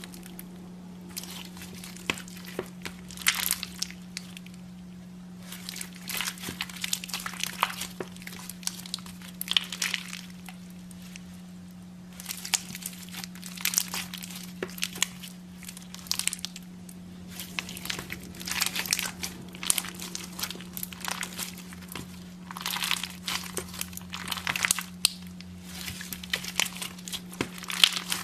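Slime being squeezed and kneaded by hand, some of it packed with small plastic charms, giving clusters of crinkly crackling and clicking pops with short lulls between. A steady low hum runs underneath.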